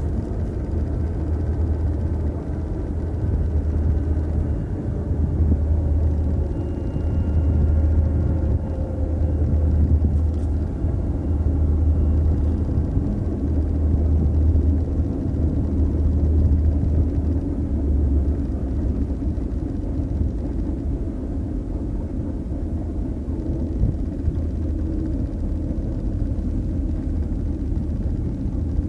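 Diesel locomotive running, a loud low throb that pulses about every second and a half, then steadies about eighteen seconds in.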